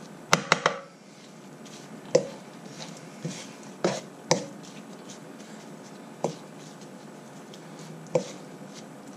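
Wooden spatula tossing minced turkey and fresh herbs around a wok. Sharp knocks of wood against the pan come three in quick succession near the start, then one every second or two, over a soft shuffle of the mixture.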